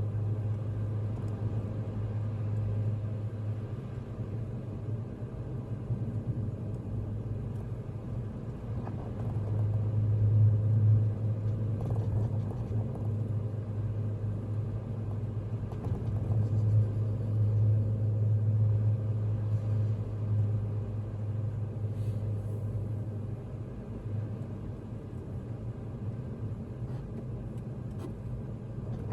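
Vehicle driving, heard from inside the cabin: a steady low drone of engine and road noise that swells louder about ten seconds in and again a little later before settling.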